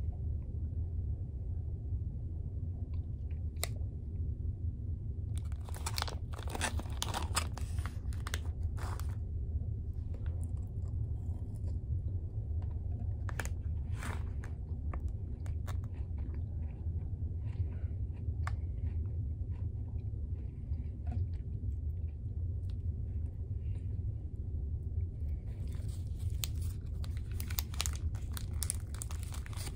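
Clear cellophane sweet wrappers crinkling and crackling as they are handled and pulled open, in bursts, with the busiest stretch near the end. A steady low hum of the ferry's engines runs underneath.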